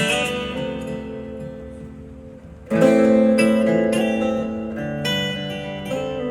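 Acoustic guitar playing chords: the first chord rings and fades for about two and a half seconds, then a loud strummed chord comes in and is followed by more chord changes.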